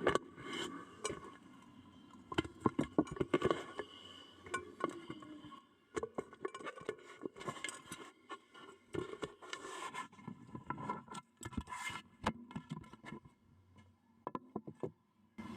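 Small clay toy cooking pots and utensils clattering: an irregular run of sharp clicks, taps and scrapes as they are handled and knocked together.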